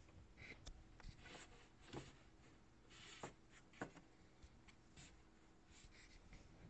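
Near silence, with faint scattered rubs and light clicks of hands handling a length of model railway track on the baseboard underlay.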